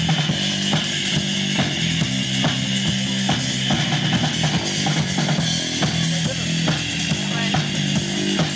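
Post-punk rock band playing an instrumental passage without vocals: a drum kit keeps a steady beat over a bass line.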